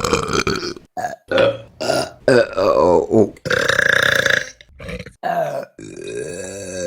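Women burping one after another: about eight separate burps, some short and clipped, a few long and drawn out with a wavering pitch.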